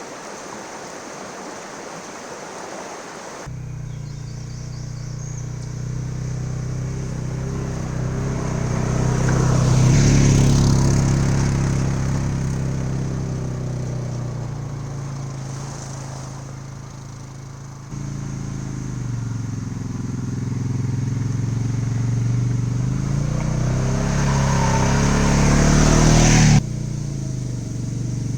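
An ATV engine running as it is ridden, heard in several edited stretches, with the engine note rising near the end as it speeds up. The first few seconds hold only a steady rushing noise before the engine comes in.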